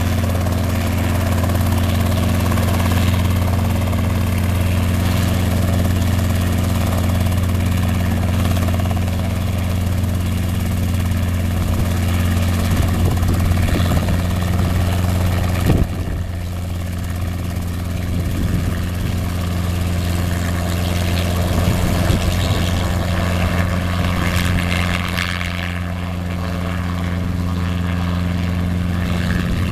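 Robinson R22 helicopter's piston engine and rotor running, a steady low drone. About halfway through the level drops suddenly, then rises and wavers as the helicopter lifts into a low hover near the end.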